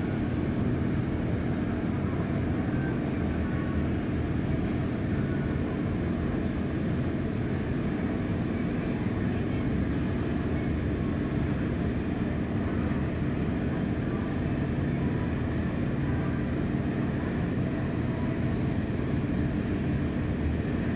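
Airliner jet engines running with a steady rumble and a faint steady high whine.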